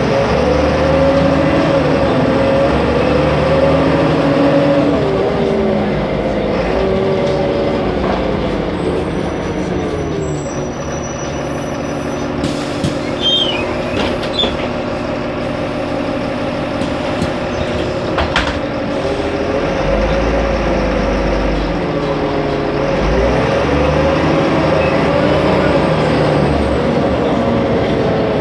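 Solaris Urbino 15 city bus engine, heard on board: its pitch rises and falls as the bus drives, then settles into a steady idle for about ten seconds with a few light clicks and knocks. The pitch rises again near the end as the bus pulls away.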